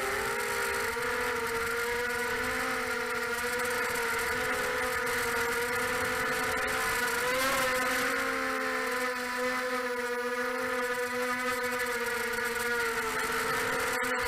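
Pitbull 250 FPV racing quadcopter's brushless motors and propellers whining steadily in flight, heard from the craft's onboard camera. The pitch wavers as the throttle changes, rising briefly about halfway through and sagging soon after.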